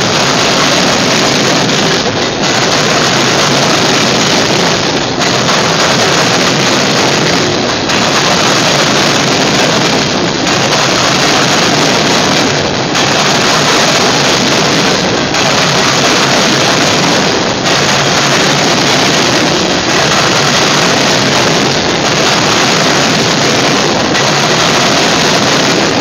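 Freight train of coal hopper cars rolling past close by, a loud, steady rumble and rattle of steel wheels on the rails, with a brief dip about every two and a half seconds.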